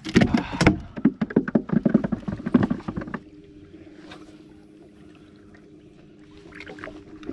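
A quick, loud clatter of knocks and rattles for about three seconds. It stops and gives way to a steady electric hum from a bow-mounted trolling motor.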